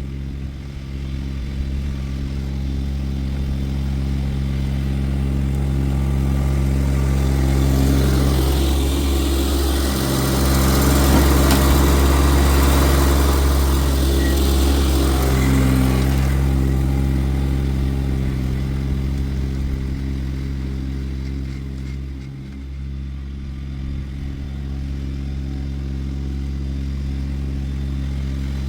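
An engine running steadily throughout, growing louder and noisier for several seconds in the middle before settling back.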